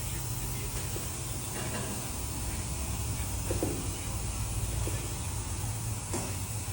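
Steady repair-shop background noise: a constant low hum under an even hiss, with a few faint clicks and taps.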